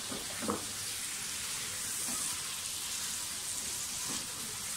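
Chicken pieces with freshly added tomato slices sizzling in hot oil in a non-stick wok, a steady frying hiss, while a wooden spatula stirs them.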